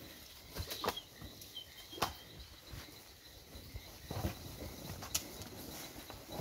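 Zebu cattle milling in a wooden corral: scattered knocks and shuffling from hooves and bodies, with a faint high chirp about two seconds in.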